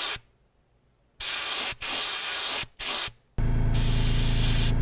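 Airbrush spraying paint in several short hissing bursts with brief pauses between them. About three and a half seconds in, a steady low motor hum starts and runs under the continuing spray.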